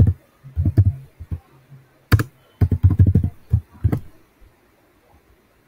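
Typing on a computer keyboard: a short run of keystrokes in the first second, then a faster run from about two seconds in, stopping about four seconds in.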